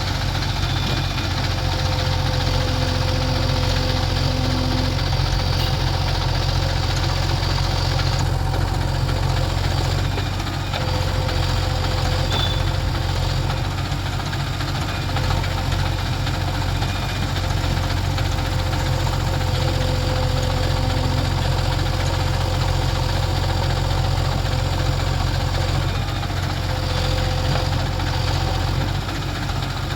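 Heavy diesel machinery engines running steadily with a low, even rumble at a loading site where a backhoe loader fills tractor trolleys.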